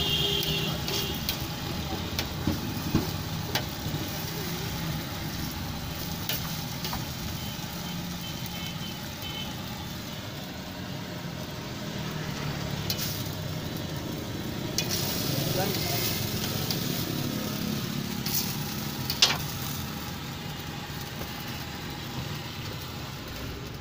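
Egg and burger buns frying on a flat griddle with a steady sizzle, broken by scattered clacks and scrapes of a metal blade against the griddle plate; a sharp clack about nineteen seconds in is the loudest sound. A low steady hum runs underneath.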